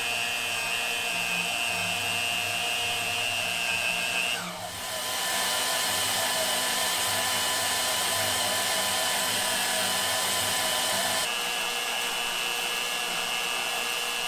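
Electric power tool running steadily with a high motor whine, most likely cutting through the steel propeller shaft. It sags briefly about four and a half seconds in, picks back up, and spins down with falling pitch at the very end.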